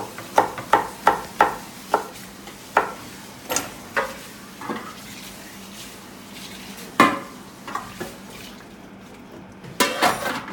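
Onion being cut by hand with a knife, slices and pepper pieces dropping into an unglazed clay güveç: a quick run of crisp cuts about three a second, then slower scattered cuts and taps, with one louder knock about seven seconds in.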